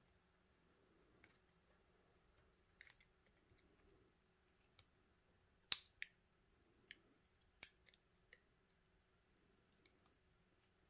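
Scattered light clicks and taps of small battery-pack parts handled by hand: the pack's circuit board, Li-ion cells and a small screw. There are about seven clicks, the sharpest a little past halfway, with near silence between them.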